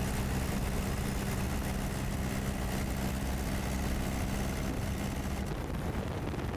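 Aircraft engine drone with a rushing noise, heard from the aircraft the footage is shot from: a steady low hum that drops away about five and a half seconds in.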